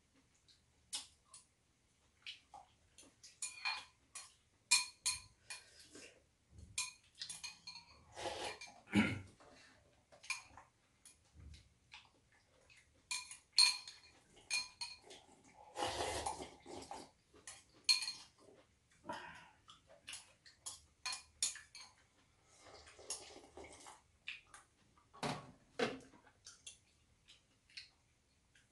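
Metal spoons and chopsticks clinking against ceramic bowls during a meal of ramyeon, in many short, ringing clinks, with a few longer noisy stretches of eating and sipping broth from the bowls.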